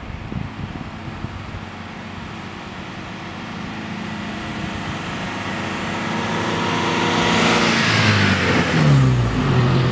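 A dark MPV's engine pulling up a steep hill. It grows steadily louder as the car approaches, then drops in pitch as it passes close by near the end.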